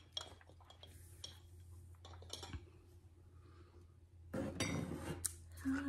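Light clinks and knocks of ceramic and metal objects being handled. About four seconds in comes a louder spell of rustling and clattering as the next items are picked up.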